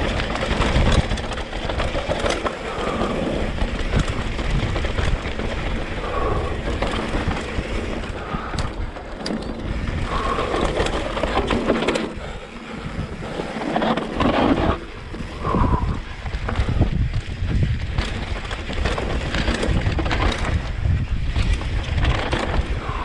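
Wind noise on the camera microphone over the sound of a Yeti mountain bike descending a dirt trail: tyres rolling on dirt and the bike rattling and clattering over bumps.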